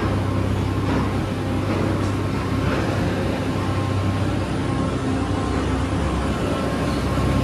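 Steady low drone of heavy construction machinery running inside a railway tunnel under construction, a continuous engine-like hum with no distinct bangs or knocks.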